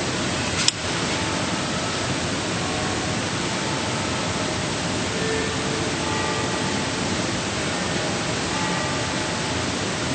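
Steady hiss of recording noise filling the sound, with one sharp click about two thirds of a second in.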